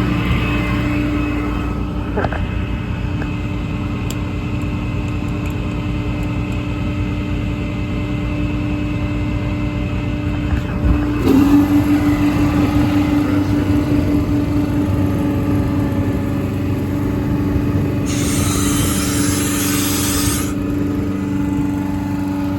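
6.7 Cummins diesel running steadily at a raised idle with the PTO engaged, driving the truck's hydraulics. The tone roughens and grows a little louder about halfway through. A hiss lasting about two seconds comes near the end.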